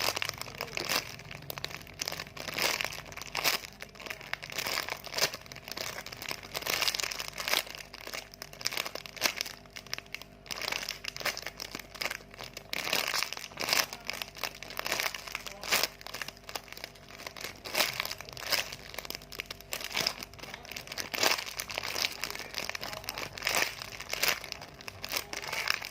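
Irregular crinkling and crackling of plastic as a squishy toy is handled and squeezed.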